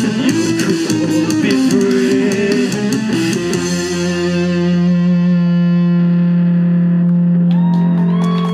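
Live rock band with electric guitars and drums playing hard, then the drums stop about three and a half seconds in and a low guitar chord is left ringing. High sliding guitar tones come in near the end.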